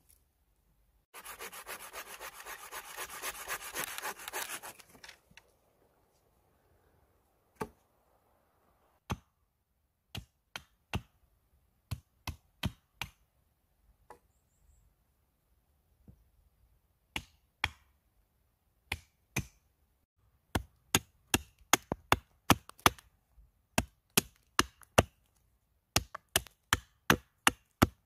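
A few seconds of rough scraping and rubbing of dry deadwood, then sharp wooden knocks of a hatchet chopping and splitting sticks. The knocks are sparse at first and come quickly in the last several seconds.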